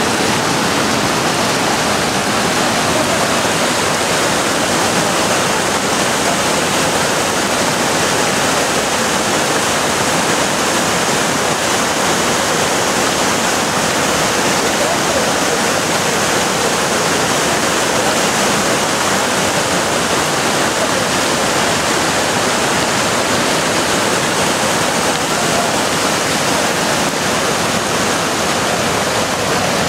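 Mountain river whitewater rushing and cascading over boulders: a loud, steady rush of water.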